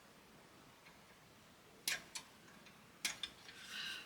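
Sprue cutters snipping plastic kit parts off the sprue: faint, with two sharp clicks about two seconds in and two more about a second later, then a brief scraping rustle near the end.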